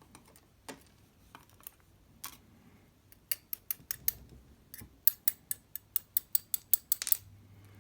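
Small metal lock parts clicking and tapping as a Lince C4 lock is taken apart: a few scattered clicks, then a quick run of light, sharp clicks about four a second from about three seconds in, stopping near the end.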